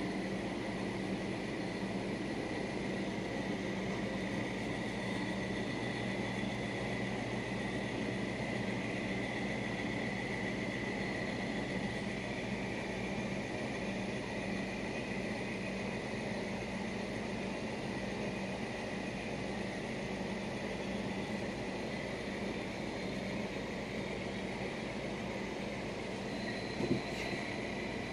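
Steady background hum and hiss with a faint, steady high whine, broken by a single short click near the end.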